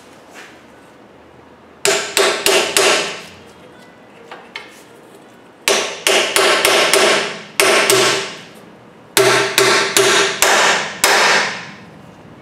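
Hammer striking a seal driver to drive a new axle seal into a Ford Crown Victoria's rear axle housing. Three runs of quick blows, five or six strikes each, each strike ringing briefly with a metallic tone.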